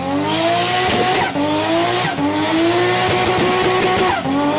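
Race car engine accelerating hard through the gears: its pitch climbs steadily, then drops sharply at each upshift, three times.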